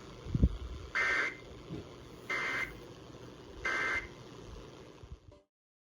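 Emergency Alert System end-of-message signal: three short, identical bursts of warbling two-tone data about 1.3 seconds apart. This is the digital code that closes a broadcast alert, here the flash flood warning. A low thump comes just before the first burst, and the sound cuts off suddenly near the end.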